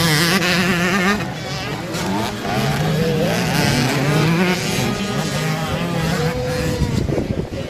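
Several motocross dirt bikes' engines revving as they ride past, the pitch rising and falling with the throttle.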